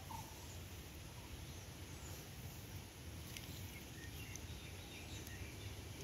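Faint steady outdoor riverside ambience: a constant low rumble under a light hiss, with a few short, faint high chirps scattered through.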